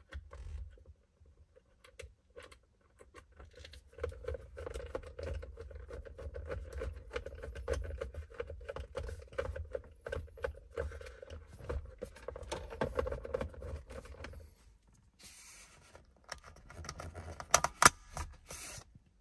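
Screwdriver driving a Phillips screw into a console mounting anchor: a long run of fast clicking with a steady hum. Near the end comes a brief rustle and then a few sharp, loud clicks.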